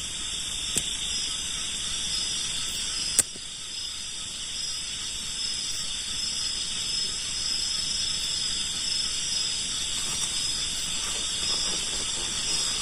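Steady high-pitched chorus of night insects, crickets, with two sharp clicks, one about a second in and a louder one about three seconds in.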